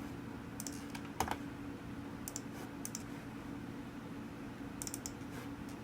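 Computer keyboard keys pressed a few times in short irregular clicks, over a steady low hum.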